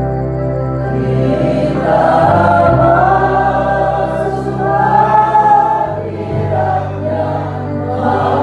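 Congregation singing an Indonesian praise and worship song together over an instrumental accompaniment with sustained bass chords. The voices come in about two seconds in, over chords that change every few seconds.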